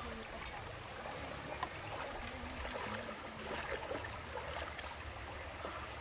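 Shallow river running and babbling over rocks, with a few small splashes as someone moves in the water.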